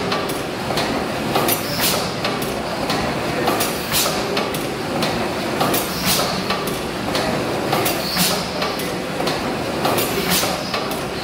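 1914 Richard Hornsby twin-cylinder gas engine running steadily, with a regular rhythm of sharp mechanical clicks and knocks, about two a second, over the constant clatter of the machinery.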